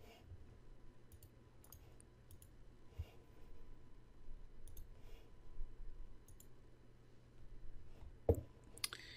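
Computer mouse clicks, faint and scattered at irregular intervals, with one louder click or knock about eight seconds in.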